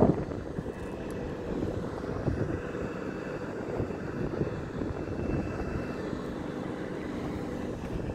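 Wind buffeting the phone's microphone while hanging under a parasail high over the water, a steady rushing rumble with a louder gust right at the start.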